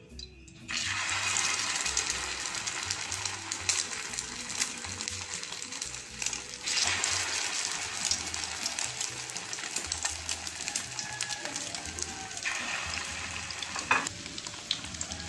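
Egg-dipped chicken shami kebabs sizzling and crackling as they shallow-fry in hot oil in a nonstick pan. The sizzle starts suddenly about a second in and grows louder as more kebabs are laid in, around seven and twelve seconds in, with a sharp click near the end.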